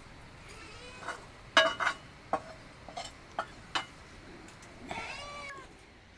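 A cat meowing twice, faintly about half a second in and more clearly about five seconds in. Several sharp clicks and knocks fall between the calls, the loudest about a second and a half in.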